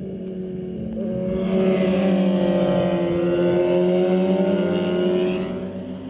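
Sport motorcycle engine heard from the roadside, growing louder about a second and a half in, its pitch dipping and climbing again as it works through a bend, then fading near the end, over a steady low engine drone.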